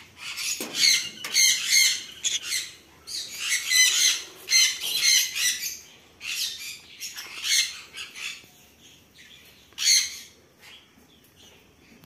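Conure squawking: loud calls repeated in quick runs, thinning out after about eight seconds, with one last loud call near ten seconds.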